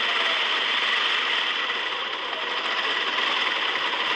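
Small electric motor and gearbox of a wired, motorised metal construction-set model truck running with a steady whir, dipping slightly about two seconds in.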